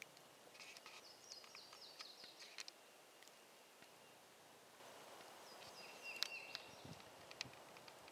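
Faint birdsong from a small bird: a quick run of high chirps, then a second short phrase about six seconds in, over quiet outdoor background hiss.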